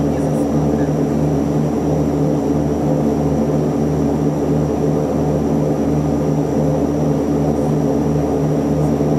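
Antonov An-24's twin Ivchenko AI-24 turboprops heard from inside the passenger cabin: a loud, steady propeller drone with a slow, regular throb.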